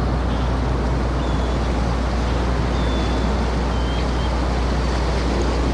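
Steady rushing noise, like wind or water, over a constant low hum, with a few faint high chirps.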